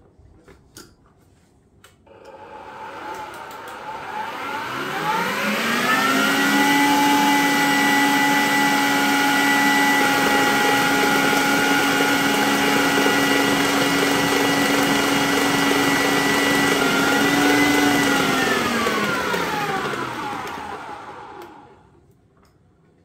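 Electric stand mixer with a wire whisk beating labneh cheese and sugar. A few light clicks come first, then the motor whine rises as it speeds up, runs steady, and winds down and stops near the end.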